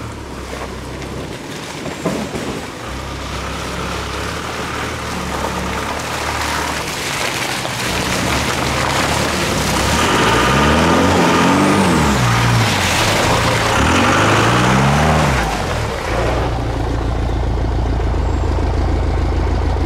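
Two pickup trucks driving along a muddy track past the camera, their engines revving up and down twice in the middle, with a steady low engine drone before and after.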